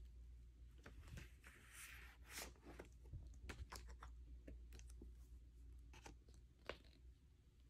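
Faint rustling and scraping of paper and card as a vinyl LP's printed inner sleeves are slid out and handled, with scattered soft ticks and one sharper tick near the end.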